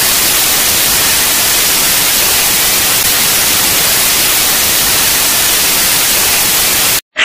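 Loud, steady TV static hiss, like an untuned television, cutting off suddenly near the end.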